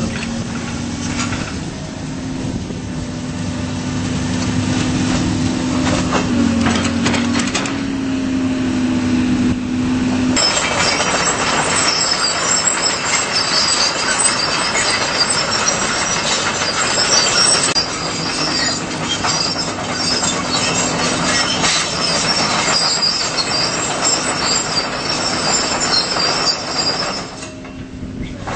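Case CX225SR excavator's Isuzu diesel engine and hydraulics running with a steady drone that steps slightly in pitch. About ten seconds in, a louder, harsher metallic clatter with high squeals takes over and carries on to the end.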